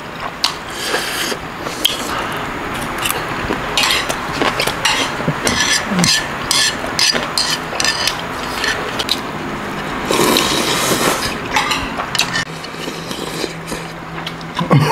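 Close-up eating sounds: ramyeon noodles and broth slurped from a ladle-spoon, with metal chopsticks clinking and scraping against the spoon and pan.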